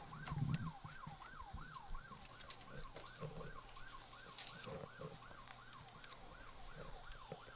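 Faint, distant emergency-vehicle siren in its fast yelp mode, its pitch sweeping up and down about three times a second.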